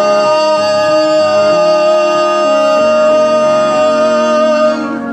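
Musical-theatre song: a singer holds one long high note over accompaniment chords that change beneath it. The note ends near the end, and the accompaniment goes on more softly.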